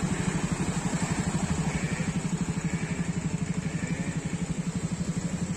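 A motor vehicle's engine idling steadily, with an even, rapid low pulse.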